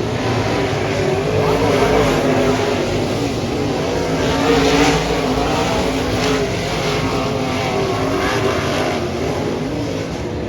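Dirt-track modified race car engines running, their pitch rising and falling steadily.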